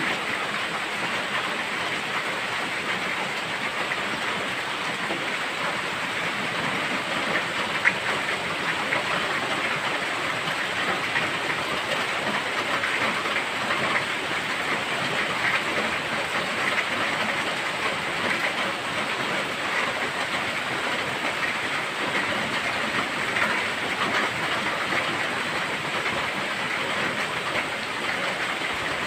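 Steady rain falling on foliage: an even hiss with scattered ticks of drops.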